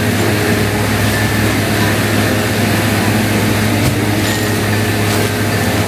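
A steady low motor-like hum, with light rustling and a couple of soft clicks as a product box and its packaging are searched by hand.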